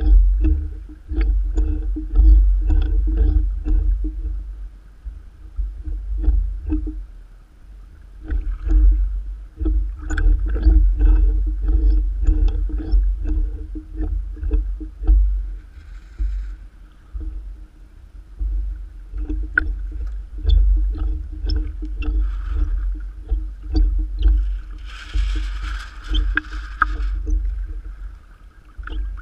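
Choppy water slapping and splashing against a small sailboat's hull, heard from a camera at the waterline, over a heavy low buffeting rumble from wind and water on the microphone. Near the end comes a brief louder hissing rush of spray.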